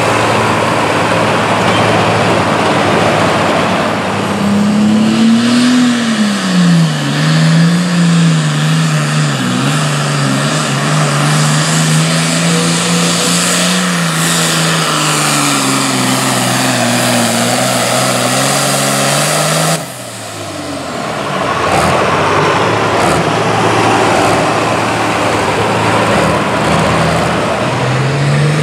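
John Deere Super Farm pulling tractor's turbocharged diesel engine at full throttle under load, loud over heavy track noise; its pitch climbs, dips and then holds fairly steady. About twenty seconds in the sound breaks off abruptly, then loud engine noise returns.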